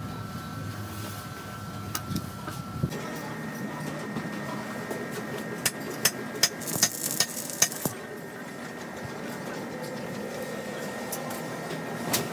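Stick (arc) welding a tack on a square steel tube frame: a burst of hissing noise lasting about a second and a half, a little past halfway, with several sharp clicks around it.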